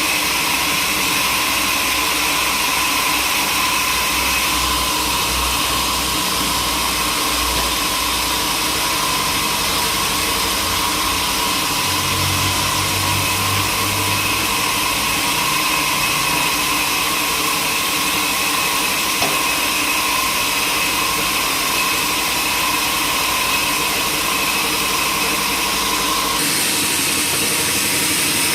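Sawmill machinery running steadily with a constant whine; one of its tones stops near the end.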